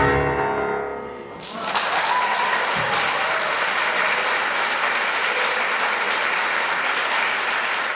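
A Steinway grand piano's last chord rings out and fades, then the audience breaks into applause about a second and a half in and keeps clapping steadily.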